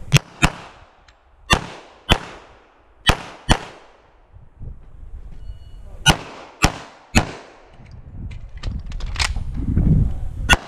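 Sig Sauer 1911 MAX .45 ACP pistol firing about ten shots, mostly in quick pairs (double taps), with pauses between the pairs as targets are engaged.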